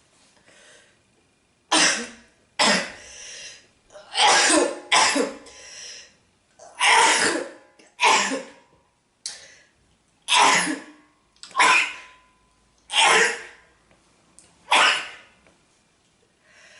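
A person sneezing over and over in a fit: about a dozen sharp sneezes, one every second or so, with short breaths between them.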